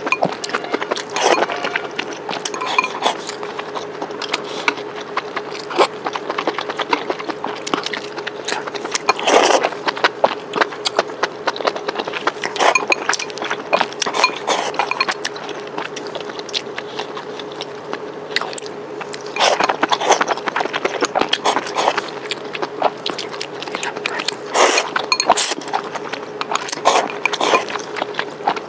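Close-miked eating sounds: a person chewing and biting spicy food, with many quick crunchy clicks and crackles. Louder flurries come about nine, twenty and twenty-five seconds in, over a steady faint hum.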